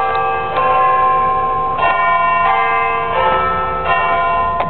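A scrap collector's bell ringing over and over, about seven strikes, each ringing on into the next.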